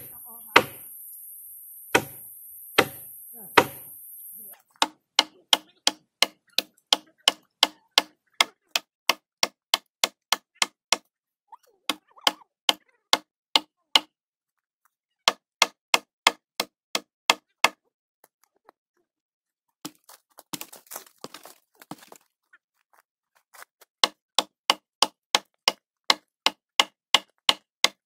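A long series of sharp, regular knocks, about three a second, pausing a few times. The first few seconds are slower and less even, over a hiss that cuts off suddenly about four seconds in.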